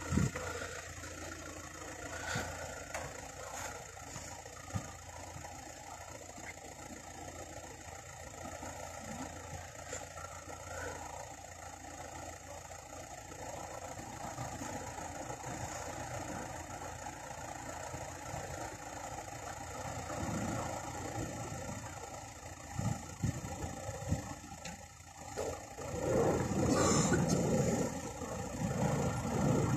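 Road traffic held at the closed crossing: vehicle engines idling and passing in a steady background, with a few short knocks. A louder low rumble builds near the end.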